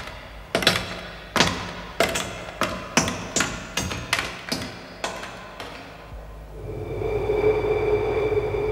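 Heavy footsteps of two people walking on a hard floor, each step a sharp knock with a short ring. About two-thirds in, the steps stop and a steady electronic hum with a few held high tones takes over.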